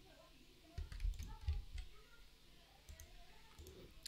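A few faint computer mouse clicks, spaced apart.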